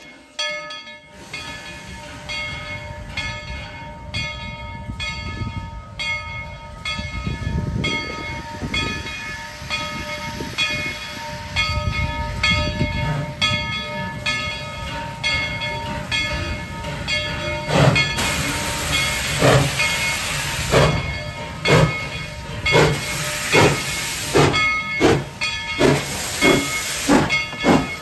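Narrow-gauge steam locomotive #190 with its bell ringing in steady, regular strokes. About two-thirds of the way through, the exhaust starts to chuff with steam hiss as the engine pulls away, the beats coming quicker.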